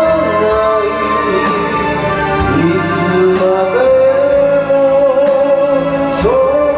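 Karaoke: a person singing a slow melody of long held notes that slide between pitches, over a karaoke backing track of keyboard and organ chords with drum hits.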